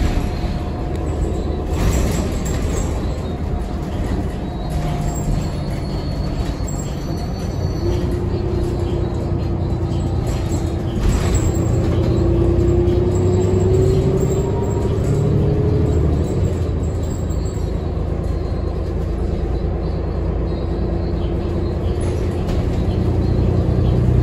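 Inside a New Flyer XD40 diesel transit bus under way: engine and drivetrain running with road noise. A whine climbs slowly in pitch for several seconds through the middle, as the bus picks up speed.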